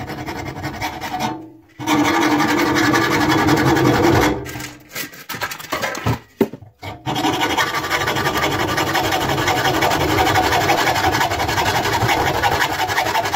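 Hand hacksaw cutting the sheet-metal door of a clothes dryer held in a bench vise. A run of quick sawing strokes starts about two seconds in, pauses with a few knocks and scrapes, then resumes as steady sawing from about seven seconds in.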